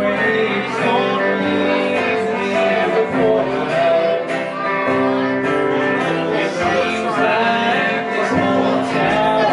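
A live band playing: electric guitar over an upright bass line, with steady held notes and a walking low part.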